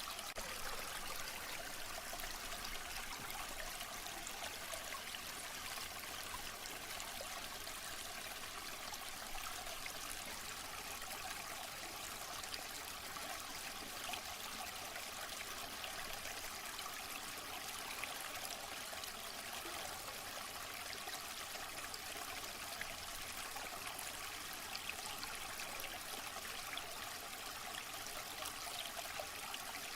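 Waterfall: a steady rush of falling, splashing water, a bright hiss with little low rumble.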